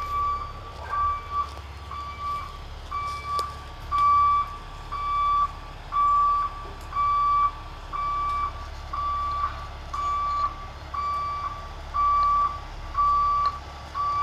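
A backup alarm beeping about once a second as a well-drilling rig truck reverses into position, with the truck's engine running low underneath.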